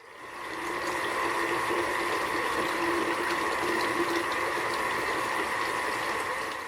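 Steady rushing of running water that fades in and fades out again.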